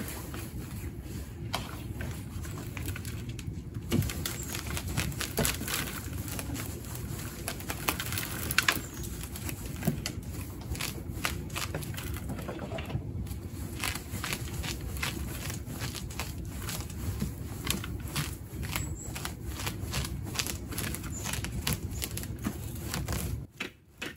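Hand root rake scratching and tearing through the dense, soil-packed root mass of a bare-rooted cherry tree, with an irregular crackle of roots and clumps of soil pattering onto a tray. A steady low hum runs underneath.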